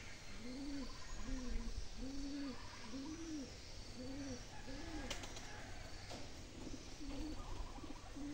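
A bird calling a long series of low, evenly spaced hoots, about two a second, fading after about five seconds, with a few softer hoots near the end. A single sharp click about five seconds in.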